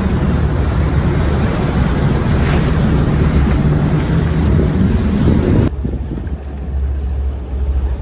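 Boat's churning wake and wind buffeting the microphone over the steady low drone of the boat's engine while trolling. After about six seconds it cuts abruptly to a quieter scene where the engine drone remains with much less wind and water noise.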